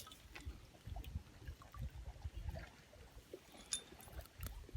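Faint wind buffeting the microphone in irregular low gusts, with a few small clicks and light water sounds.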